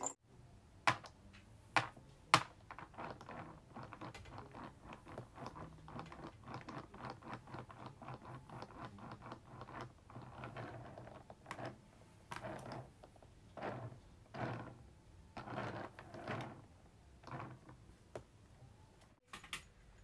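Rapid light clicking and tapping of a budgie's claws and beak on a wooden tabletop and its plastic toys, with three sharper clicks in the first few seconds.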